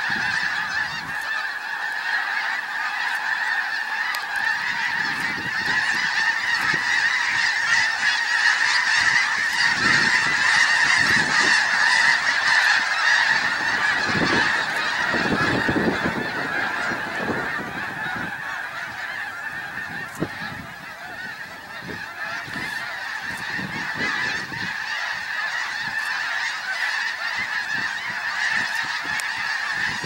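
A large flock of snow geese calling all at once in a dense, unbroken chorus of honks. The chorus swells in the middle and eases a little near the end.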